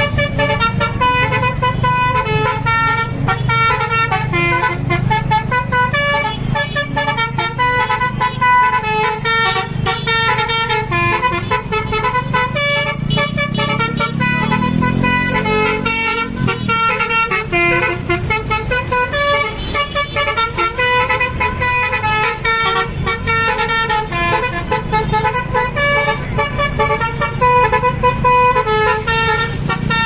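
A bus's basuri 'telolet' musical horn playing a fast tune of short notes one after another, with the low rumble of engines beneath.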